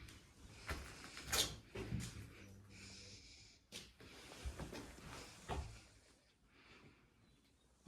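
Footsteps crunching and scraping on debris in an empty room, about half a dozen irregular steps with a louder scrape just under a second and a half in, dying away after about six seconds.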